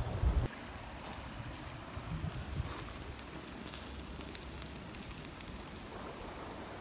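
Wood campfire crackling and popping in scattered sharp snaps, with a low gust of wind on the microphone at the very start. The crackling stops about six seconds in, leaving a steady low rush.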